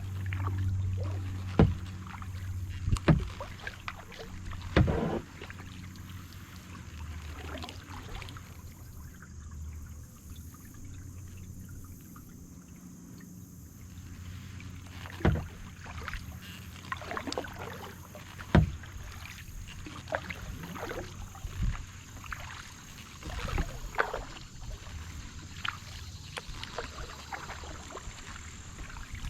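Kayak paddle dipping into calm lake water, with irregular splashes and drips from the blades as the strokes go on, and a quieter lull of a few seconds midway.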